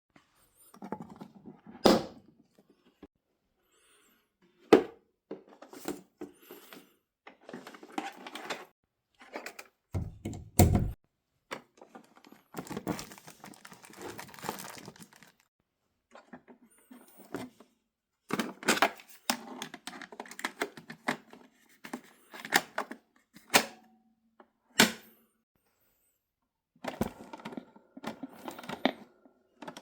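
Close-up handling noises from working on a 1970s cassette recorder: scattered sharp clicks and knocks, stretches of rustling and rattling, and short silent gaps. A heavier thump comes about ten seconds in.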